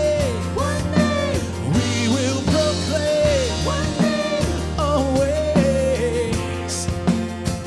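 Worship band music: drum kit and steady bass under a wavering melody line.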